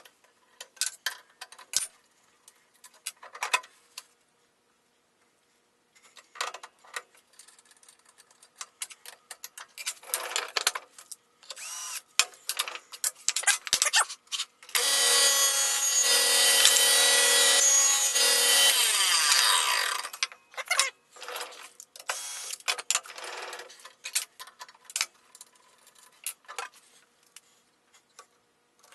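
Clicks and rattles of metal parts and hand tools as a wobble dado blade is taken apart and adjusted on a table saw arbor. About halfway through, a power tool runs with a steady whine for about five seconds and then winds down.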